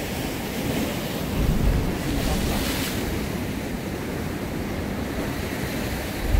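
Sea waves surging and washing over shore rocks, with a hissing wash about two to three seconds in. Wind buffets the microphone in low gusts, once near the start and again at the end.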